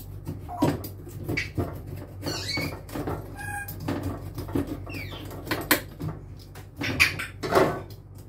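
Knife cutting through baked almond-topped crackers: an irregular run of sharp crunches and cracks, with a few short squeaks, over a steady low hum.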